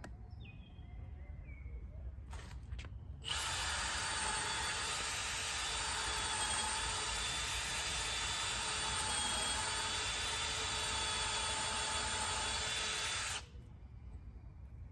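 Cordless drill boring a mounting hole into the house wall. It runs steadily at one speed for about ten seconds from about three seconds in, then stops.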